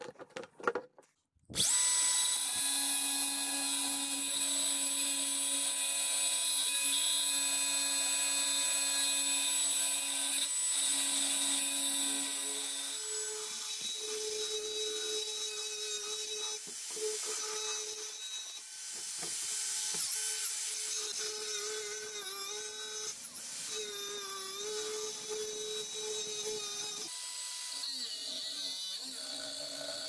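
DeWalt angle grinder starting up about a second and a half in, then running with a steady high whine as its cut-off disc grinds into the steel shell of a refrigerator compressor. The tone shifts partway through and the sound eases off near the end.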